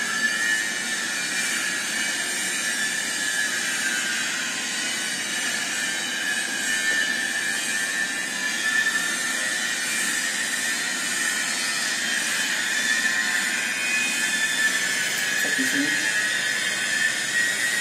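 Steady machine noise, an even hiss with a constant whine, unchanging throughout.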